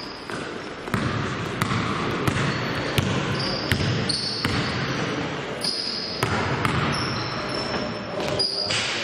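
Basketball game sounds in a large gym: a basketball bounced on the court floor about every two-thirds of a second, with short high squeaks of sneakers on the floor and players' voices echoing in the hall.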